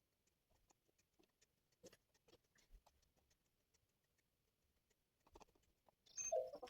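Faint, scattered light clicks and taps in a quiet room, then a louder, busier clatter beginning about six seconds in.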